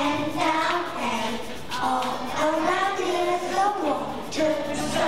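A young girl singing a melody into a handheld microphone.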